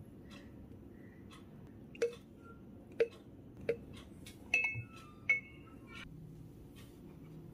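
Glass blender jar clinking as batter is scraped and knocked out of it into ceramic ramekins: about five light, sharp taps at irregular intervals of roughly a second, a few of them leaving a short glassy ring.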